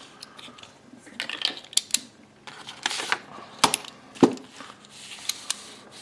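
Master Lock speed dial style padlocks being handled on a tabletop: a scattering of sharp clicks and clacks of the metal shackles and lock bodies, loudest a little past halfway.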